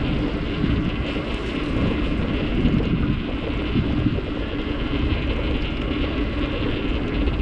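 Wind blowing across the microphone of a moving bicycle, a steady rushing noise with no clear breaks.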